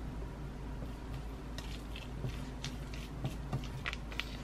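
Faint scattered clicks and light rustles of hand food preparation over a bowl, ending with a small plastic mayonnaise packet being handled, over a low steady hum.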